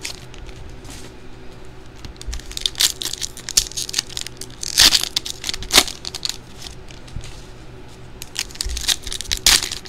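Wrappers of trading-card packs crinkling and tearing as they are handled and opened: irregular rustling with sharper crackles about 3, 5, 6 and 9.5 seconds in.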